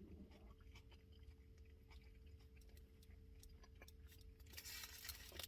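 Faint chewing of a turkey sandwich on soft Italian bread: soft, scattered mouth clicks over a low steady hum, with a brief rustle about a second before the end.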